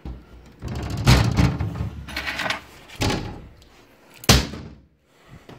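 A series of knocks and thuds, with a sharp bang about four seconds in as the loudest.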